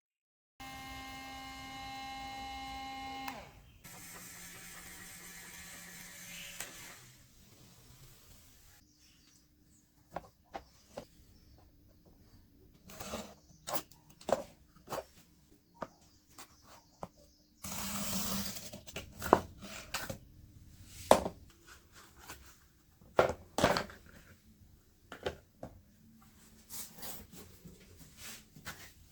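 A small electric motor hums steadily for about three seconds, then a lower, noisier hum runs on for a few seconds more. After that come scattered sharp clicks and taps of hand work, with a brief rustling burst partway through.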